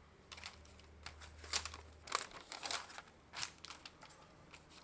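Paper quick start guide being unfolded and handled: irregular crinkling and rustling, a handful of short crackles.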